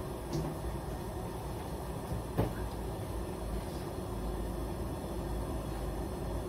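Steady low rumbling background noise, with a sharp knock about two and a half seconds in and a lighter click near the start.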